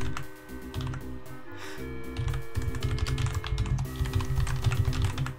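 Typing on a computer keyboard, a quick run of keystroke clicks, over synthesized background music with held notes.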